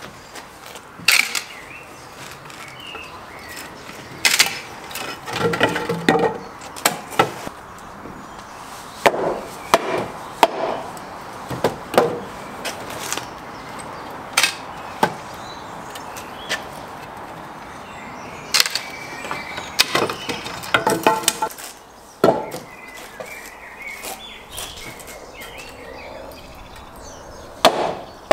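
Wooden mallet striking the back of a froe to split coppiced sweet chestnut: sharp knocks at irregular intervals, some in quick runs. Between the blows there is crackling as the froe is levered and the wood splits along the grain.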